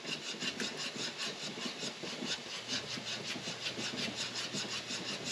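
Whisk stirring hot strawberry rhubarb jam in a stockpot, scraping around the pan in a quick, even rhythm of about four strokes a second.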